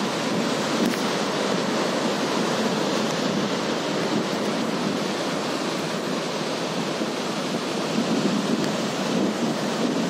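Surf breaking and washing in, a steady rush of waves, with wind blowing across the microphone; it swells a little near the end.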